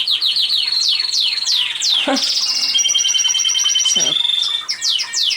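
Domestic canary singing: a fast run of repeated downward-sweeping whistled notes, then a rapid, even trill held for over a second.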